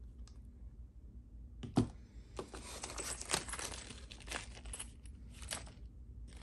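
A small cardboard product box set down on a mat with one knock about two seconds in, then a clear plastic bag of small steel Allen wrenches handled, the plastic crinkling and the wrenches clinking, with a few lighter taps as the bag is set down near the end.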